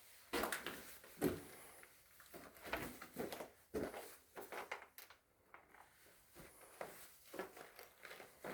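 Irregular footsteps and crunching over debris on the floor of a derelict room, with scattered light knocks.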